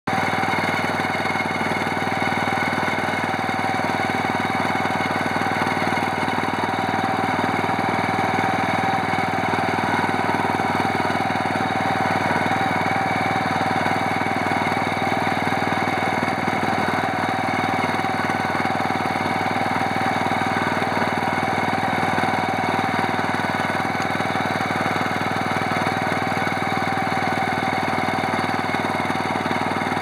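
Small engine of a walk-behind cultivator running at a steady speed as it works the soil between rows of Welsh onions.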